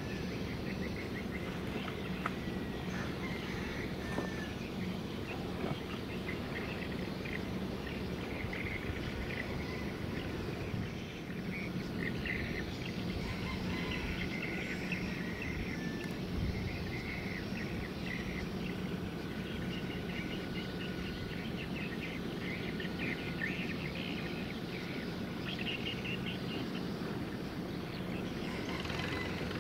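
Steady low rumble with a hum from a big container ship passing close by, with short high chirping calls scattered over it.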